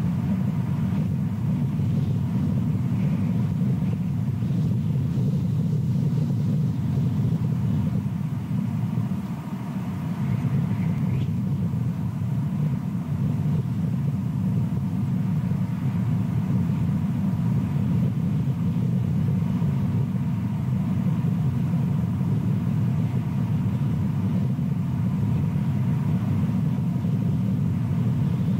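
A steady low rumble of outdoor background noise on the nest-camera microphone, easing briefly about a third of the way in.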